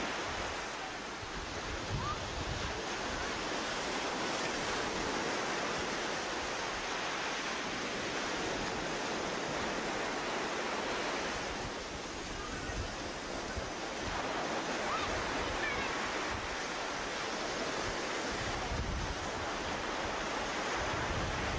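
Ocean surf breaking and washing up a sandy beach: a steady rush that eases briefly about a second in and again about halfway through.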